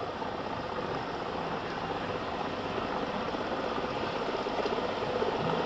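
Mi-17 helicopter hovering: a steady rotor and engine noise that swells slightly toward the end.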